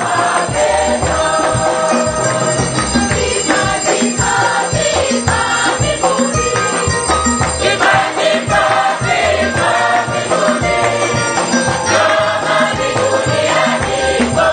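Lively church music: a choir of voices singing together over a steady drum beat, loud and continuous.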